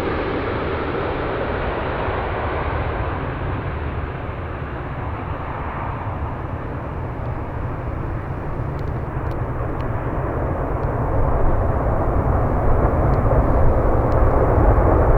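Jet airliner engine noise: a steady roar with a deep rumble, easing slightly in the middle and growing louder again in the last few seconds.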